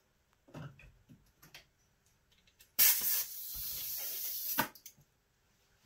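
Airbrush spraying black paint in one short burst of just under two seconds: a sharp start, then a steady hiss that cuts off. A few faint handling knocks come before it.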